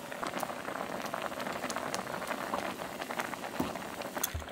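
Potato sujebi soup boiling hard in a pot on high heat, a steady dense bubbling and popping as the dough pieces cook through. Two soft knocks near the end.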